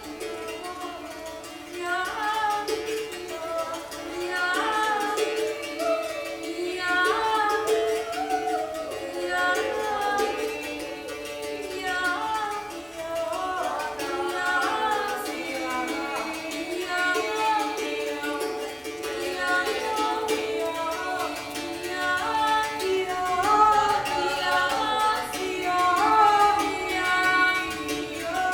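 Improvised music: singing voices gliding and holding notes over a plucked string instrument.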